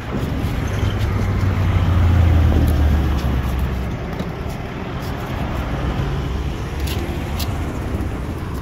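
Road traffic going by, with a vehicle passing close that swells to its loudest about two seconds in and then fades to a steady rumble.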